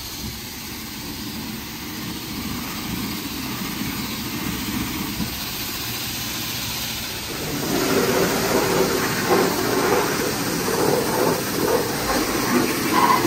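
Self-serve car wash pressure wand spraying water in a steady rush, growing louder and more spattery about halfway through as the spray strikes the car.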